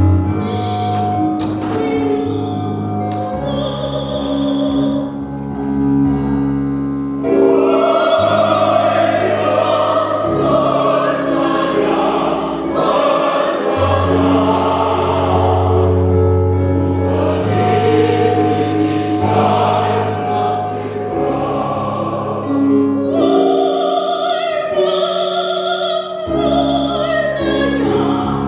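Operatic singing by several voices together, with held, wavering notes over a sustained low accompaniment.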